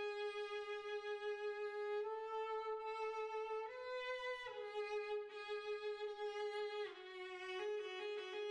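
A single bowed string line in the violin's range playing a slow melody of long held notes, about five in all, one after another, with vibrato in the last notes.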